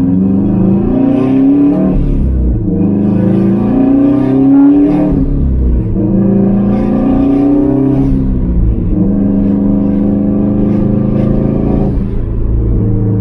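Subaru Impreza WRX STI's turbocharged EJ25 flat-four boxer engine pulling through the gears, heard from inside the cabin. The pitch rises and drops back at a shift three times, then holds steady at a cruise for the last few seconds.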